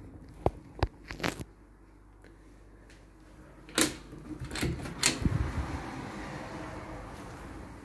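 A door being opened and passed through: a few light clicks, then louder knocks and a clatter about four to five seconds in, followed by a steady hiss.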